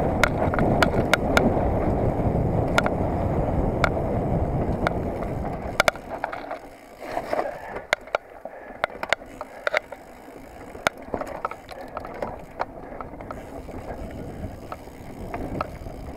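Mountain bike ridden fast down a dirt forest trail, heard from a camera mounted on the handlebars: a steady rush of wind on the microphone and tyre rumble, with frequent sharp clicks and rattles from the bike as it runs over bumps. About six seconds in the rush drops away and the clicks and knocks stand out more.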